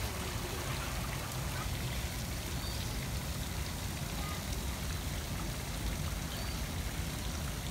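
Steady splashing and trickling of running water, with an even low rumble underneath.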